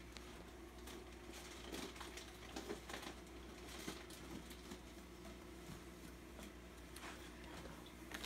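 Faint scattered handling clicks and rustles over a steady low hum.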